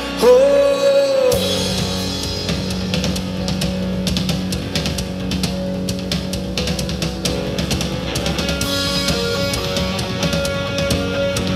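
Live rock band playing an instrumental passage on electric guitars, bass guitar and drum kit. A held note opens it, and a little over a second in the bass and drums come in fully and carry on steadily.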